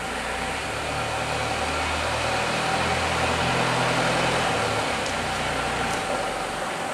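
Roller conveyor of a crate stacking line running, its drive motor humming as a stack of plastic crates rolls along. The hum swells about a second in and eases off near the end, with a couple of light clicks.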